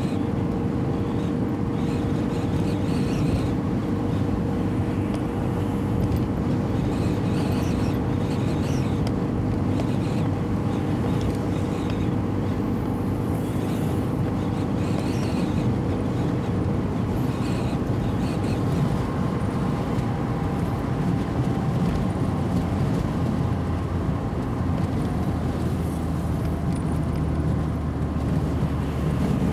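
Car driving at steady speed: a continuous mix of engine hum and tyre and road noise, with a deeper engine hum coming in near the end.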